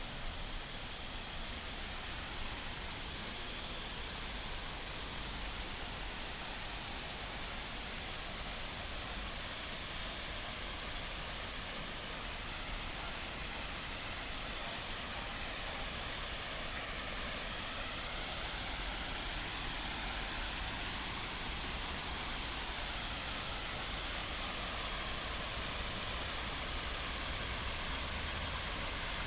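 Cicadas calling in a chorus: a high, pulsing buzz about once a second that merges into a steady drone for several seconds, then breaks back into pulses.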